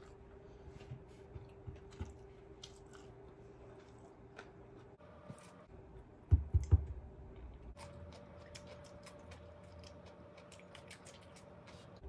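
Close-miked eating sounds: a mouthful of rice being chewed, with many small wet mouth clicks. About six seconds in come two heavy low thumps, the loudest sounds, and a faint steady hum runs underneath.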